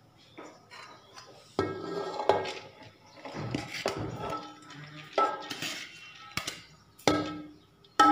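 A metal spoon clanking and scraping against an aluminium cooking pot as boiled rice is spooned in over the curry for the biryani layer. There are several sharp clanks that ring briefly, with softer scrapes between them.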